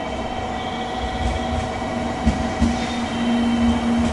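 JR West 700 Series 'Rail Star' shinkansen moving slowly through the station. Its electric drive gives a steady whine in several tones over a low rumble, with a few knocks from the wheels about two seconds in.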